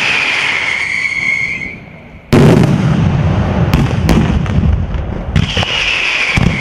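Daytime fireworks battery in the San Severo style: a high, steady whistling with crackle, then a sudden loud blast about two seconds in that opens a dense, rolling barrage of bangs and crackle, with the whistling coming back near the end.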